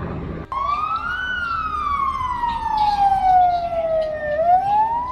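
Emergency vehicle siren wailing, starting abruptly about half a second in: its pitch rises, falls slowly over about three seconds, then rises again near the end.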